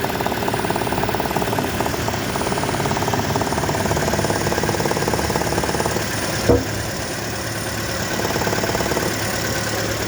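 Toyota Prius petrol engine running steadily with a fast, even rattle through its sound, and one short thump about six and a half seconds in.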